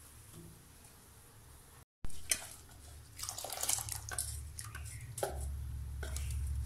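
Soaked rice being tipped from a steel bowl into a pot of boiling milk and water, making wet splashes and drips that start suddenly about two seconds in.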